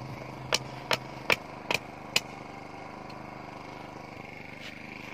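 A run of sharp hammer-like knocks, about two and a half a second, five of them, stopping a little after two seconds in; under and after them a faint steady engine-like hum.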